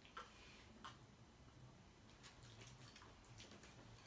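Near silence: room tone with a faint low hum and a few faint, short clicks.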